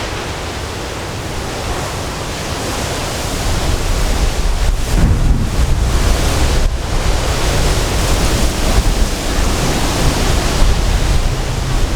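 Strong thunderstorm wind rushing and buffeting the microphone with a heavy low rumble, growing louder about four seconds in.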